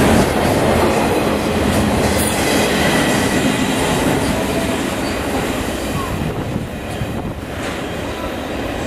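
Double-stack intermodal freight train rolling past, its steel wheels running on the rails. The sound grows gradually quieter as the last container cars move away.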